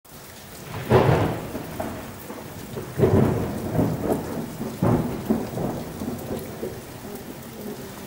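Steady rain with peals of thunder: three loud rumbles, about one, three and five seconds in, each dying away.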